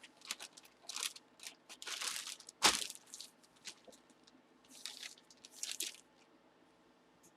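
Plastic packaging crinkling and rustling in short bursts as it is handled and pulled open, with one sharp snap nearly three seconds in.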